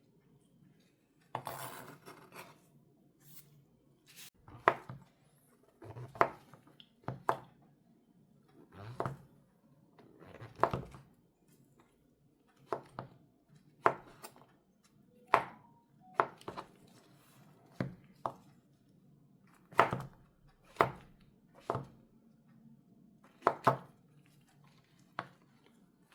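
Kitchen knife slicing king oyster mushrooms into strips on a cutting board. Single sharp knocks of the blade on the board come unevenly, about one a second, some in quick pairs.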